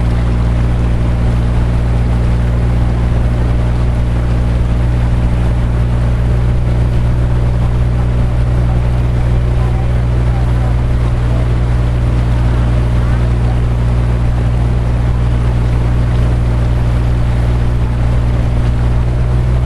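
Motorboat engine running steadily at cruising speed, a constant low drone, with water rushing and splashing along the hull.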